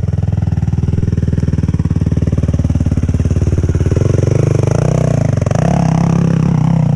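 Quad bike engine running loud and close under throttle, with a dense, even pulse. Its note rises a little about four seconds in.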